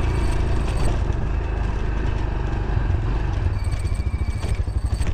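Motorcycle engine running as the bike rides along a rough dirt track, with a heavy low rumble. About four seconds in the sound turns to an even, pulsing chug.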